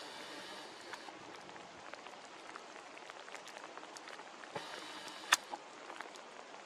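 Light rain falling: a steady patter with scattered ticks of drops, and one sharper click about five seconds in.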